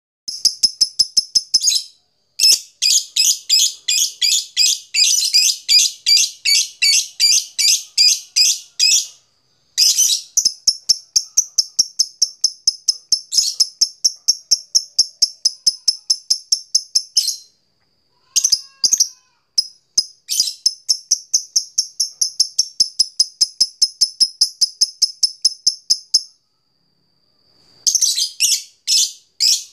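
Fighter lovebird calling a rival with its 'ngetik' call: long runs of rapid, sharp, high-pitched chirps, about four or five a second, broken by short pauses.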